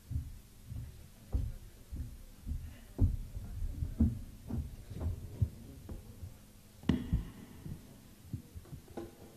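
Irregular low thuds and bumps, roughly two a second and uneven in strength, with one sharper knock about seven seconds in.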